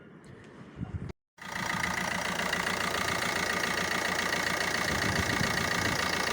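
Opel Astra H 1.3 CDTI four-cylinder turbodiesel idling steadily, starting abruptly about a second and a half in, with a steady high whine through it. The new water pump has just been fitted and the engine runs normally.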